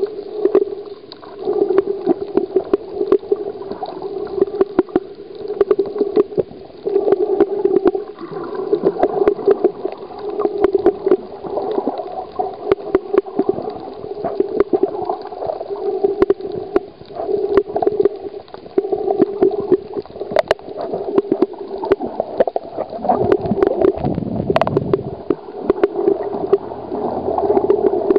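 Muffled underwater water noise picked up by a submerged camera: sloshing and gurgling that swells at a slow, regular pace about every two seconds, with a scatter of sharp crackling clicks throughout.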